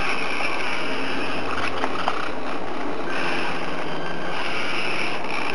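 Small electric motors and plastic gearbox of a 1/32 mini RC crawler whirring as it drives, with a high whine that drops away and returns as the throttle changes.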